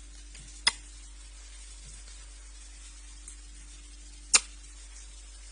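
Two sharp clicks about three and a half seconds apart, over a quiet steady room hum and hiss.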